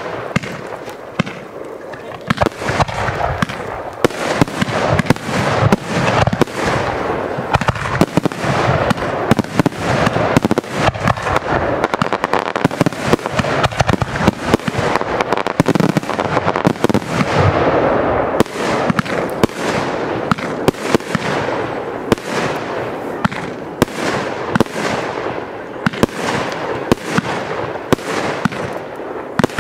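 Fireworks display: a dense, continuous barrage of aerial shell launches and bursts, many sharp bangs in quick succession over steady crackling.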